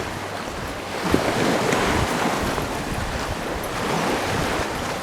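Waves washing onto the beach, a steady rush that swells about a second in and again later, with wind buffeting the microphone.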